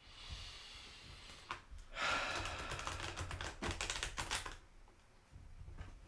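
A deck of tarot cards being shuffled by hand: a soft slide of cards, then a rapid run of flicking card clicks for about two and a half seconds, and a few quieter clicks near the end.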